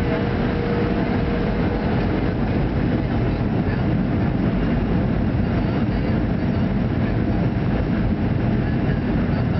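Steady cabin noise of a Boeing 737-300's CFM56 jet engines running while the airliner taxis, heard from a seat over the wing, with a low rumble. A faint steady tone fades out about two seconds in.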